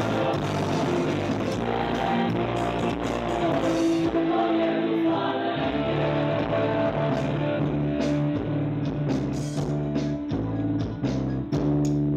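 Live Christian worship band music: a full band playing with singing, steady and fairly loud, with a regular drum beat.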